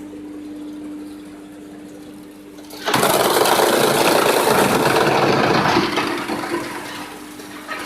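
Wood chipper running with a steady hum; about three seconds in, a loud, rough chipping noise starts as material goes through the cutters, lasts about three seconds, then dies back to the running hum.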